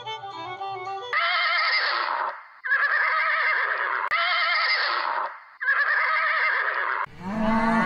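Horse whinnying: four neighs in a row, each about a second long with a shaky, wavering pitch. A cow starts mooing near the end. A violin tune stops about a second in.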